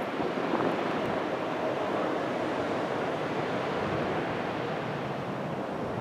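Steady rushing noise of ocean surf.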